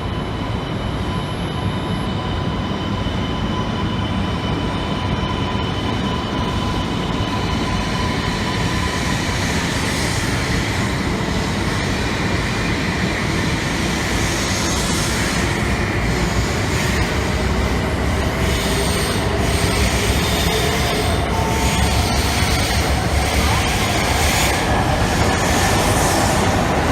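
Shinkansen train running on the platform track: a steady rumble that grows slowly louder, with a motor whine rising in pitch over the second half as the train gathers speed.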